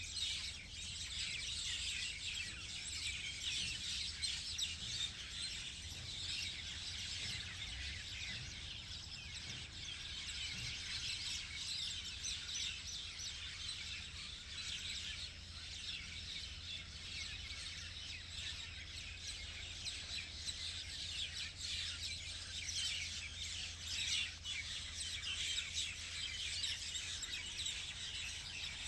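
A flock of small birds chirping and twittering together, many quick overlapping chirps without a break, over a faint steady low hum.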